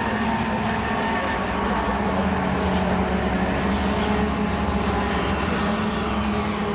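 Engines of several classic Mini race cars at speed, a steady drone with their pitches sliding slightly as the pack approaches.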